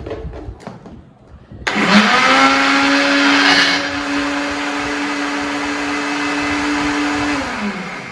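Silvercrest countertop blender switched on: its motor starts abruptly, runs at a steady high speed with a hum and a whirring hiss, and is loudest for the first couple of seconds. Near the end it is switched off and spins down, the hum falling in pitch as it stops.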